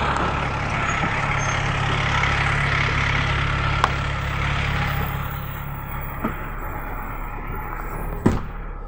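Steady engine rumble and street traffic noise around an idling GAZ Gazelle Next minibus, growing a little quieter and more muffled about halfway through. A few sharp knocks sound, the loudest near the end.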